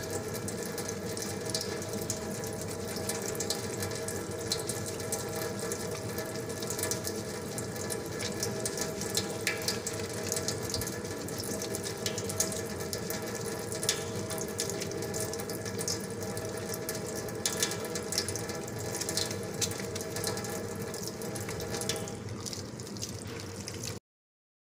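Tap water running steadily into a stainless steel sink while hands are soaped and rubbed under the stream, over a steady hum. The sound cuts off suddenly shortly before the end.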